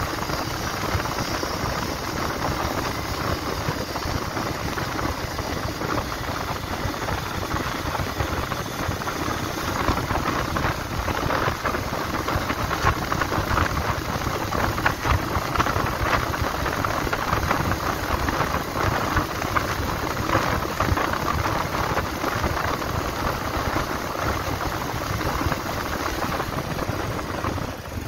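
Bajaj Pulsar 150 motorcycle's single-cylinder engine running steadily at a cruise of about 50 km/h, mixed with steady wind and road noise. The sound fades out at the very end.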